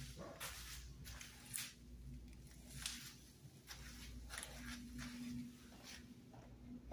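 Footsteps and rustling of the handheld phone as someone walks on a hard floor, a soft knock or scuff every half second or so, over a faint low hum that comes and goes.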